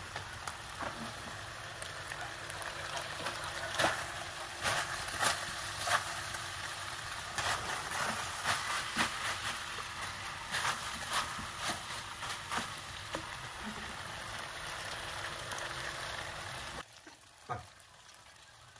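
Meatballs sizzling in sauce in a nonstick frying pan, stirred with a plastic spatula that knocks and scrapes against the pan. The sizzle drops away abruptly near the end.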